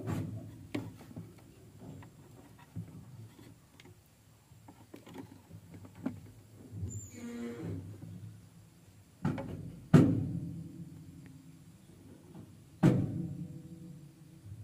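A few dull thumps, each dying away with a low ring over a second or so; the loudest comes about ten seconds in, with another a few seconds later.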